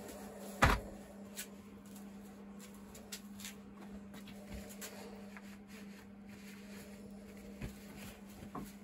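A vintage Dunlop M15 rubber bicycle saddle, with its sprung steel frame, is set down in a metal tray with one sharp knock about a second in. A few light clicks and handling sounds follow, over a steady low hum.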